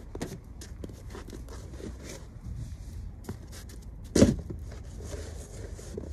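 Snow shovel scraping and chopping into snow in irregular strokes, with one loud sharp strike about four seconds in.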